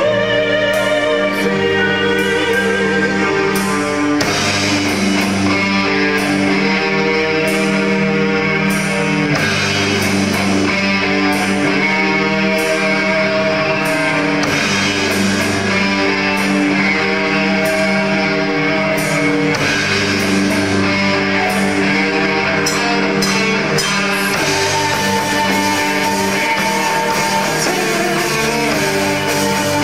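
A live metal band playing, with electric guitar, drums and a synthesizer keyboard. Long held chords change every few seconds over steady cymbal strokes.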